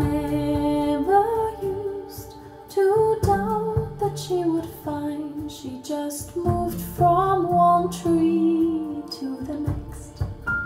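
A woman singing a song with instrumental backing, a vinyl record played on a Linn Klimax LP12 turntable through a pair of floor-standing loudspeakers.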